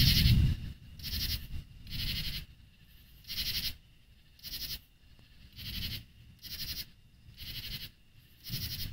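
Rhythmic, pulsed animal calls repeating about once a second, with low rumbles among them; the loudest rumble comes at the start.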